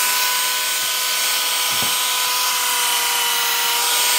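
Power tool running steadily while it cuts, a constant motor whine over rough cutting noise, with one brief knock about two seconds in.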